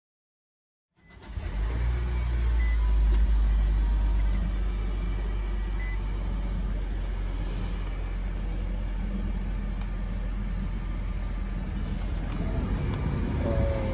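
Nissan Juke engine idling, heard from inside the cabin: a steady low rumble that comes in about a second in and is slightly louder for the first couple of seconds before settling.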